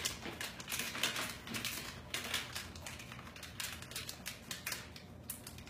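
Clear plastic piping bag crinkling in the hands as a piping tip is worked down into it: a rapid, irregular run of small crackles.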